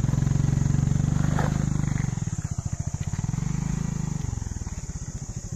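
Motorcycle engine pulling hard up a loose dirt slope, loud for about two seconds, then easing off and fading as the bike moves away.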